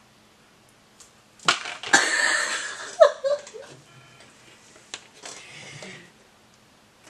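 A thin disposable plastic water bottle crackling loudly as it is grabbed and squeezed, with a short burst of laughter about three seconds in, then crackling again as the bottle is drunk from near the end.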